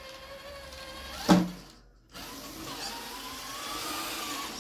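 RC rock crawler's electric motor and gears whining under load as it climbs a steep ramp. About a second in there is one short loud sound. After a brief pause the motor whines again, its pitch slowly rising.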